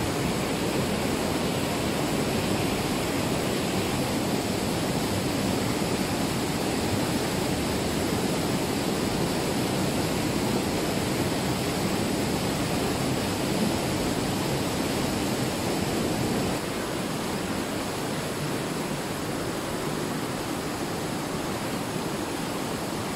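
Mountain stream rushing over boulders as white water in a narrow limestone gorge, a steady roar of water. It drops a little in level about two-thirds of the way through.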